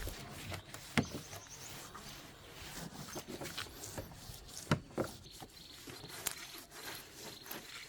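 Scattered light clicks and knocks, with two louder knocks about a second in and just before five seconds.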